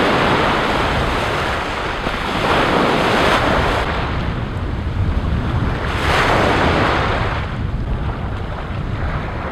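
Ocean surf breaking at the shoreline, waves washing in with three swells over several seconds, with wind rumbling on the microphone.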